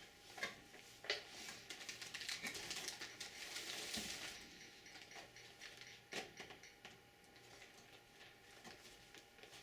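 Handling noise from cables and plastic connectors inside a desktop PC case: a few small clicks and knocks, with a rustling scrape from about one and a half to four seconds in.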